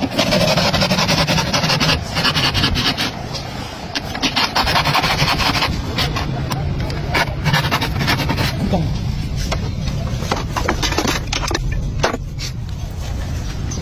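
A hand tool rasping and scraping across wood in several long stretches of quick strokes, then scattered knocks and clicks.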